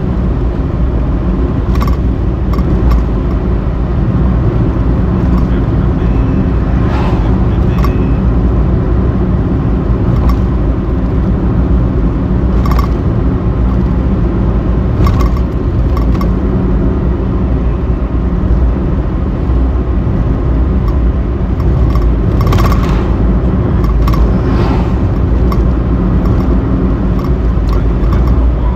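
Steady low road and engine noise of a car driving along, heard from inside the cabin.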